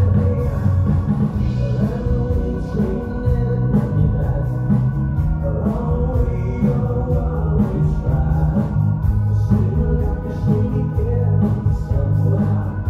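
Live pop-rock band playing: drums, bass, electric guitar and keyboards, with vocals singing over them.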